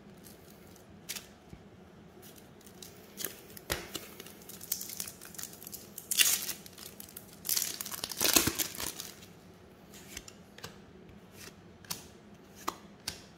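Wrapper of a trading-card pack being torn open and crinkled, with two longer stretches of tearing and rustling about halfway through. Light clicks and taps of card handling come before and after.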